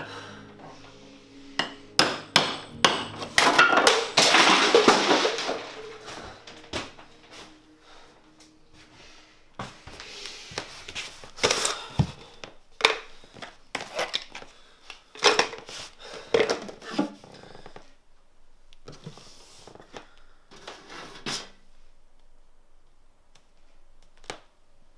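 Hand-tool woodworking: a wooden mallet knocking a chisel into wood, in uneven runs of sharp knocks separated by pauses, with a denser stretch of rough noise about four seconds in.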